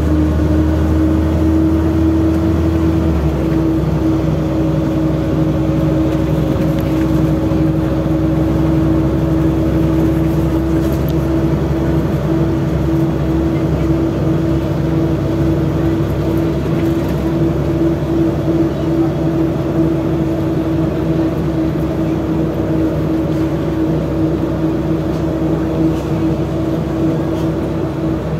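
LiAZ-5293.54 city bus driving, heard from inside the passenger cabin: engine and running gear at speed with a steady whine over the road noise. The low drone changes about three seconds in.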